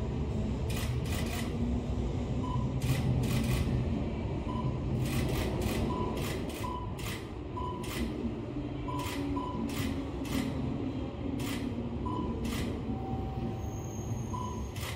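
JR East 205 series electric train running past with a steady low rumble, its wheels clacking repeatedly over the rail joints, often in quick pairs.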